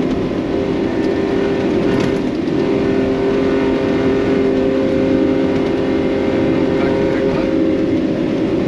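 Off-road 4WD's engine running at a steady, even pitch with heavy drive noise, the vehicle under way.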